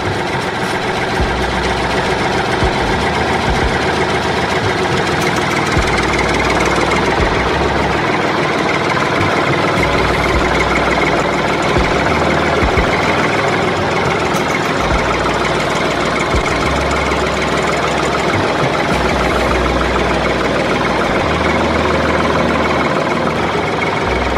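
Truck engine sound running steadily at idle with a knocking diesel-like rumble, the low rumble swelling and fading every few seconds. It is an added sound effect for a plastic toy dump truck, not the toy's own sound.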